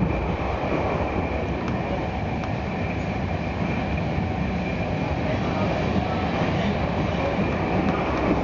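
Intercity passenger train running at speed, heard from inside the carriage: a steady rolling rumble of wheels on rails, with a faint steady high tone over it.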